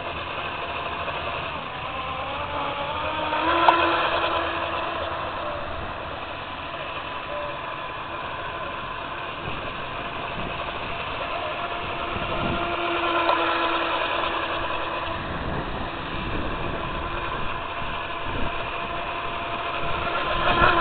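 Tiny RC boat's 23 g brushless outrunner motor on a 2S lipo, turning a 25 mm metal prop, whining as the boat runs across the water. The whine glides up and down in pitch with the throttle and swells about four seconds in and again about thirteen seconds in.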